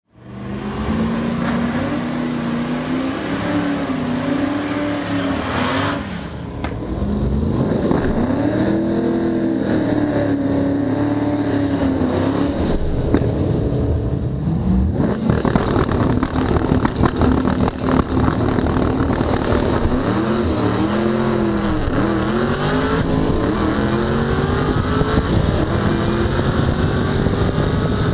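Chevrolet Camaro ZL1's supercharged V8, running on nitrous, revving and then accelerating flat out down a drag strip. The engine note climbs in each gear and drops back at each shift, with wind rush building from about halfway through.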